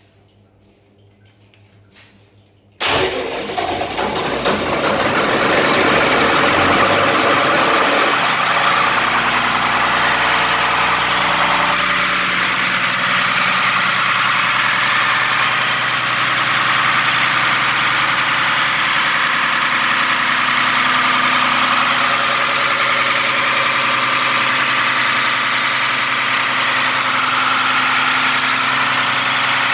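Diesel fire pump engine, freshly overhauled and on a test run, starting suddenly about three seconds in, picking up over the next few seconds, then running steadily.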